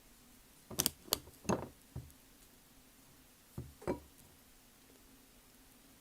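Dry Multani mitti (fuller's earth clay) crunching as it is bitten into, close to the microphone: a quick cluster of sharp crunches about a second in, then two more about three and a half seconds in.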